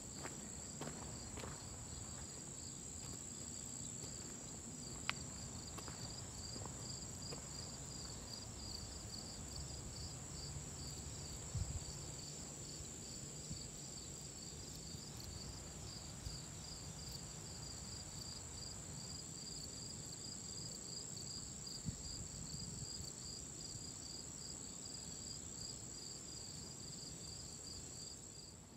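Chorus of crickets and other singing insects: a steady high trill with a faster pulsing chirp just below it, both running on evenly, with a few faint ticks.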